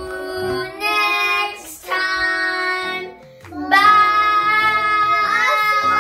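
Children singing together in long held notes, with a short break about three seconds in and the last note held for about two seconds.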